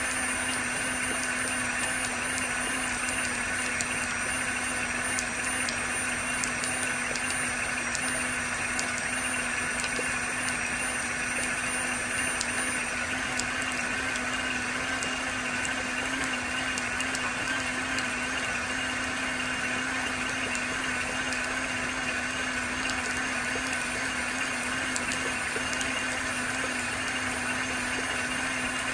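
Royal Dirt Devil hand vacuum's motor running steadily while it lies in a rain puddle, a constant hum with a higher whine over it. Faint scattered ticks of raindrops sound through it.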